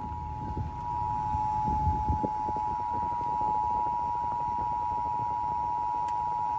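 Emergency Alert System two-tone attention signal: two steady tones near 853 and 960 Hz sounded together as one unbroken tone, the alert that comes before a warning message. A faint low rumble runs under it in the first couple of seconds.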